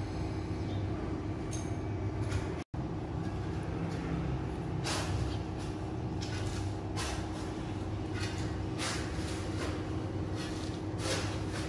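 Steady low background rumble and hum, with a few brief soft rustles of fingers handling fishing line; the sound cuts out for an instant about three seconds in.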